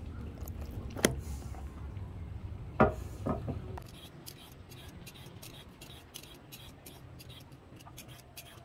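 Hand julienne peeler drawn again and again down a raw carrot, a short scraping stroke about four times a second from about four seconds in. Before that, a couple of sharp knocks over a low rumble.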